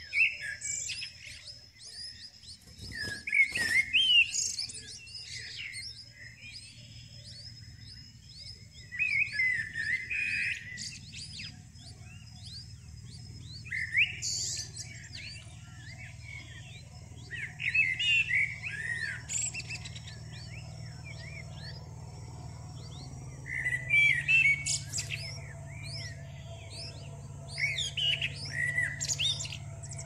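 Songbird nestlings begging in the nest: bursts of shrill, rapid chirps every few seconds, each lasting one to two seconds.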